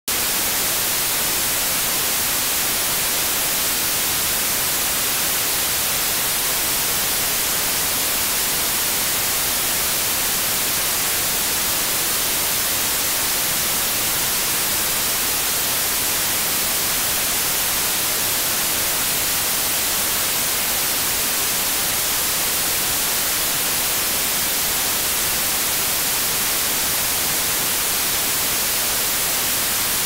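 TV-static white noise: a steady, even hiss with no breaks or changes, brightest in the treble.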